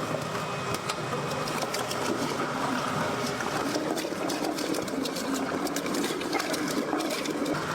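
Meat-processing machine running with a steady rushing noise and rapid irregular clicks and rattles.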